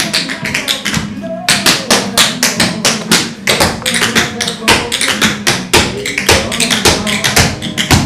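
Tap dancer's feet striking a hard floor in rapid, uneven runs of sharp taps, with a short pause about a second in, over background music.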